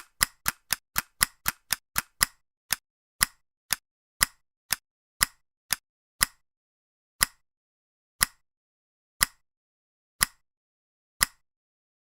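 Sharp ticks, an edited-in sound effect, with dead silence between them: about four a second at first, slowing to two a second after about two seconds, then one a second from about six seconds in.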